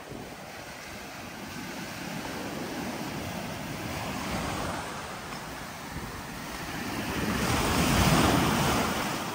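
Ocean surf washing onto the beach, with wind on the microphone; the surf swells louder about eight seconds in as a wave comes in, then eases.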